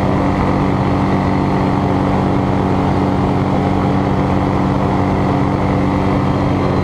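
Kitfox light aircraft's engine and propeller running at takeoff power through the takeoff roll and liftoff, a loud, steady drone at an even pitch, heard from inside the cockpit.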